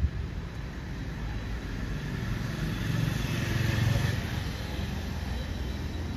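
Steady background traffic noise, with a motor vehicle passing that swells to its loudest about four seconds in and then fades.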